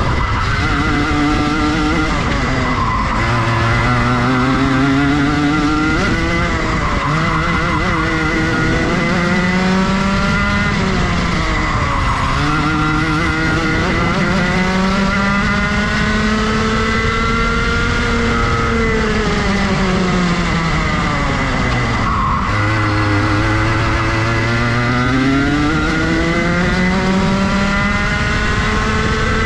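Rotax Max Junior 125cc single-cylinder two-stroke kart engine at racing speed. It climbs in pitch on the straights, then drops sharply and picks up again about five times as the kart brakes for corners and accelerates out. A steady high whine sits over it.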